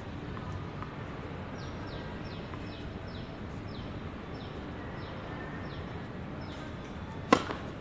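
A tennis ball struck hard with a racket, one sharp loud crack near the end. Before it, over a steady outdoor background noise, a bird repeats short, high, falling chirps about three times a second.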